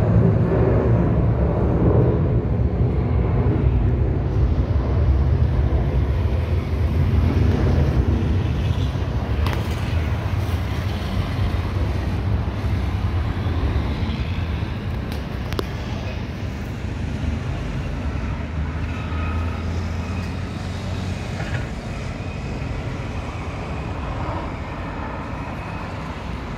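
Boeing 737-800's CFM56 jet engines heard from the ground as the airliner climbs away after takeoff: a deep, steady rumble that slowly fades.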